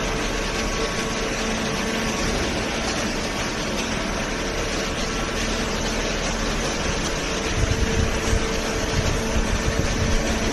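Hydraulic baler's motor and hydraulic pump running steadily with a constant hum, joined by an uneven low rumble from about seven and a half seconds in.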